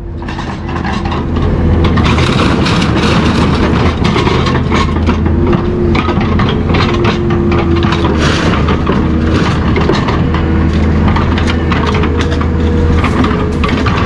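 Metal being crushed by a heavy machine: a steady low engine drone under dense, irregular cracks and crunches of metal giving way.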